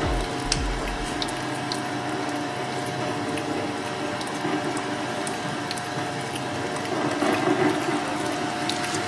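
Twin-shaft shredder running, its steel cutter discs turning and chewing through a slime ball, with a wet, squishing sound over a steady machine hum and scattered small clicks. It gets a little louder near the end.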